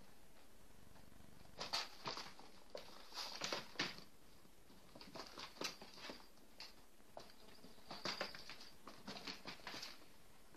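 Kittens' paws scrabbling and pattering on the cardboard floor of a box and rustling paper, in irregular runs of scratching that start about a second and a half in.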